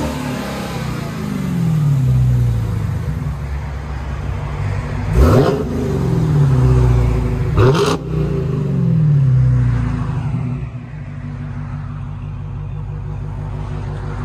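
Supercharged 6.2-litre Hemi V8 of a 2021 Dodge Challenger Hellcat through a Black Widow Race Venom dual exhaust, blipped sharply twice, about five and eight seconds in, falling back after each rev, then settling to a steady idle.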